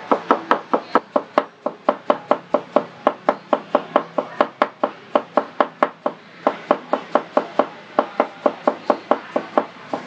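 Knife rapidly slicing an onion into thin slivers on a wooden cutting board: a steady run of sharp, even chops, about four or five a second, which stops near the end.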